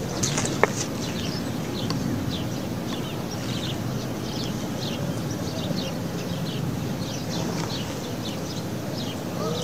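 Outdoor ambience: small birds chirping, short falling chirps a few times a second, over a steady background rumble. One sharp click sounds about half a second in.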